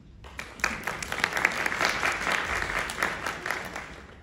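Audience applauding, a crowd of many hands clapping that starts just after the opening, swells, then thins out near the end.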